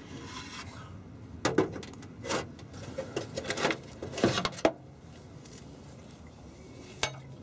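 A few separate, irregular clinks and knocks of hand tools on metal while the exhaust downpipe is being unbolted from the turbo.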